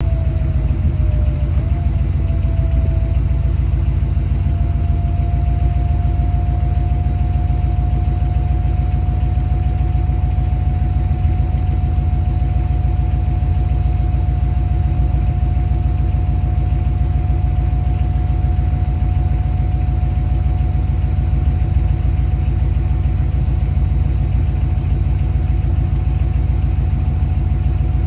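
A 1946 Ford convertible idling steadily, under the steady whine of the power top's motor as the folding top lowers. The whine dips in pitch about a second and a half in, then holds level until it starts to fall away right at the end as the top settles down.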